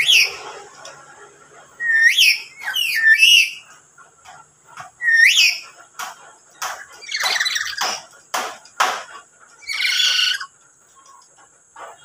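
Lory calling: several loud, sharply rising whistles, then harsher short screeches, and a longer rasping screech about ten seconds in.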